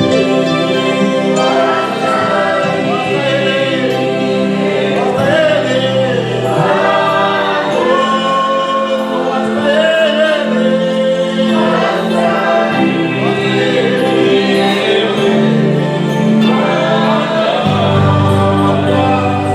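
Choir singing a gospel song with instrumental backing.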